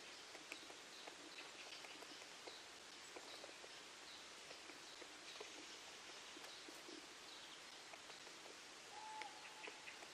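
Faint outdoor ambience with distant small birds chirping and calling, scattered light ticks, and one short whistled note about nine seconds in.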